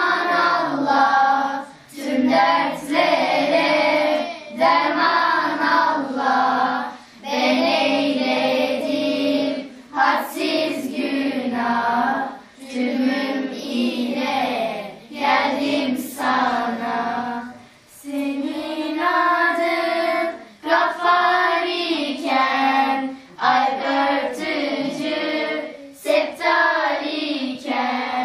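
Group of girls singing an ilahi, a Turkish Islamic hymn, together into a handheld microphone, in long phrases broken by short pauses for breath.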